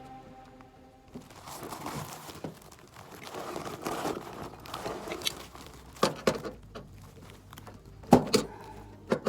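Crinkling and rustling of material being handled, with a few sharp knocks about six seconds in and again near the end.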